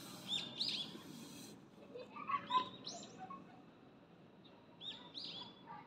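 Small birds chirping: short, arched chirps in quick groups of two or three, heard three times, with some lower calls in between.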